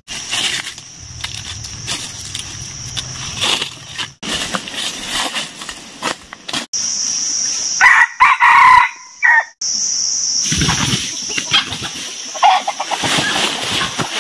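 A rooster (junglefowl-type) crows once, loud, for about a second and a half, some eight seconds in. Around it are rustling in dry leaf litter and a steady high buzz.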